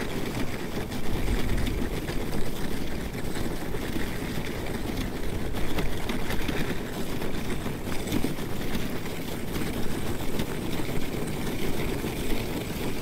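Dog sled running along a packed snow trail, its runners sliding over the snow in a steady rushing noise that is heaviest in the low end.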